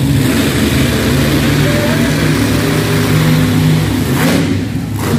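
Monster truck's engine running loud and steady, its pitch stepping up and down with the throttle, easing off briefly near the end.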